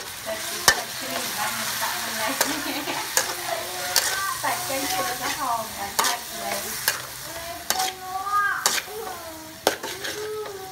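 Beef stir-frying in a steel wok: steady sizzling, with the metal spatula scraping and knocking against the pan roughly once a second.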